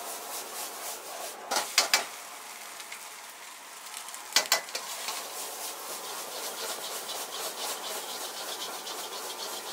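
Egg fried rice sizzling in a wok over a high gas flame while a metal spatula scrapes and stirs it, with a steady hiss throughout. Sharp clanks of the spatula against the wok come in a cluster between about one and a half and two seconds in and again at about four and a half seconds, followed by quicker, lighter scraping strokes.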